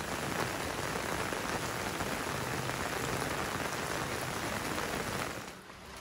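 Steady rain falling, a dense even hiss that fades away about five seconds in.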